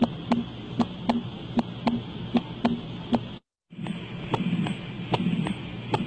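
Heart sounds recorded through a stethoscope: a steady lub-dub at about 80 beats a minute, demonstrating a split second heart sound (split S2). A little over halfway it cuts off, and after a brief silence a new heart recording starts, with more hum between the beats, demonstrating tricuspid insufficiency.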